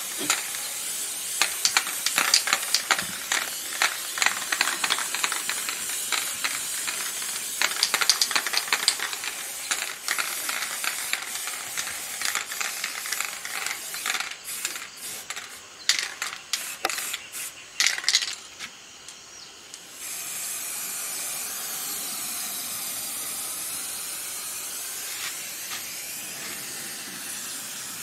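Aerosol spray-paint can hissing against a wooden door, broken by many sharp clicks and rattles over most of the first eighteen seconds. From about twenty seconds in it becomes an even, steady hiss.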